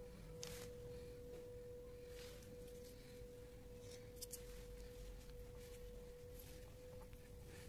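A faint, steady single-pitched tone, mid-high like a hum or whine, over low background rumble, with a few soft clicks about half a second and about four seconds in.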